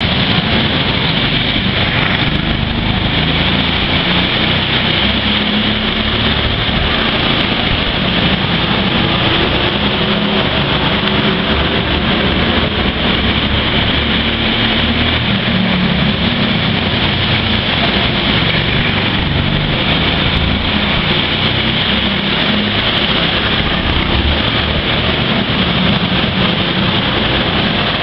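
Go-kart engines running loud and steady as karts lap a track, their pitch drifting up and down as they speed up and slow for the corners.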